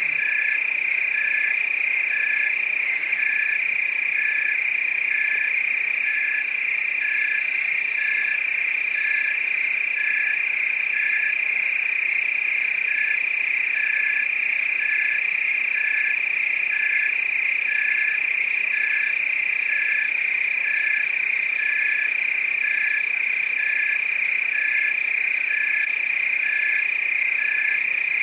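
Frogs and crickets calling together: a continuous high-pitched insect trill, with a regular pulsed call repeating about once a second over it.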